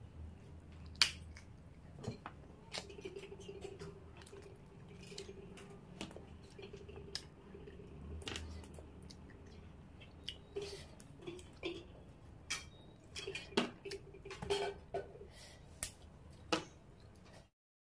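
Close-up eating sounds of crab curry eaten by hand: sharp cracks and clicks of crab shell being broken and bitten, with wet chewing and squishing between them. The loudest crack comes about a second in, the clicks grow more frequent in the second half, and the sound cuts off abruptly just before the end.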